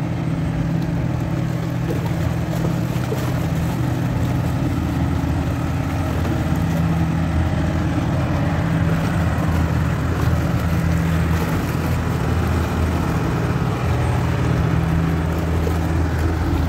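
Diesel engines of a river push-tug pushing a loaded barge past, a steady low drone.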